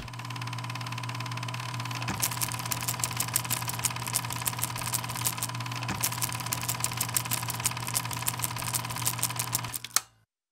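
A steady machine-like hum with a rapid, even clicking joining it about two seconds in, like a small mechanism running; it cuts off suddenly near the end.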